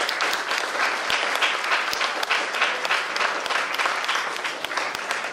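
Audience applauding, a dense, steady clapping from a crowd of people.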